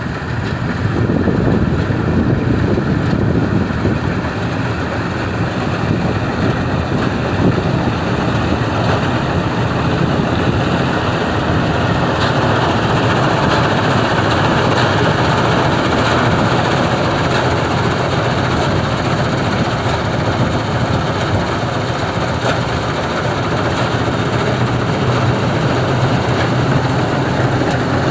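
Combine harvester running, a steady loud mechanical drone of engine and machinery that swells about a second in.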